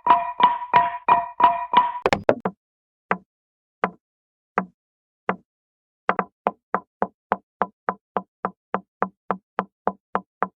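Hanna-Barbera cartoon hit sound effects in sequence. First a pitched, ringing strike repeated about four times a second, then a few quick clicks, then four single knocks spaced slowly apart, and from about six seconds in a fast, even run of knocks about four a second.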